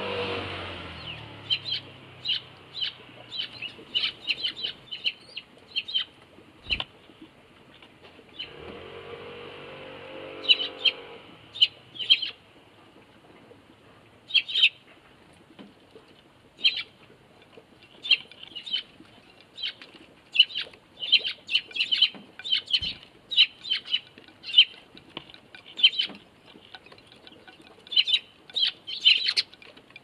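Eurasian tree sparrows chirping, many short sharp chirps in quick runs. At the start a motorbike engine fades away, and another brief engine hum passes about ten seconds in.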